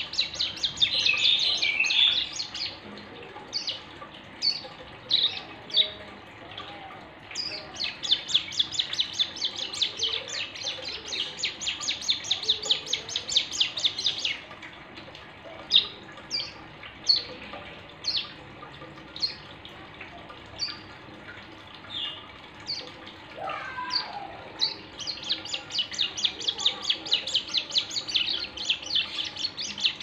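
A ciblek gunung, a small prinia, calling in fast trains of sharp, high chirps, several a second, broken up by single chirps; the trains come near the start, through the middle, and again near the end.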